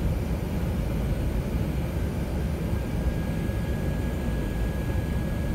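Steady cabin noise of an Airbus A380 climbing after takeoff, heard from a window seat: an even, low rush of engines and airflow. A faint steady high tone comes in about halfway through.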